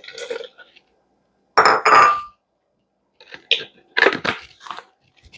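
Clinks and knocks of a blender jar and its lid being handled, a few separate hits with the loudest pair about two seconds in, one leaving a short ring.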